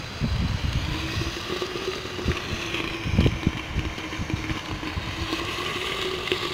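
Two small Cat 1 ground fountains burning inside a chips can, giving a steady hiss, with gusts of wind buffeting the microphone.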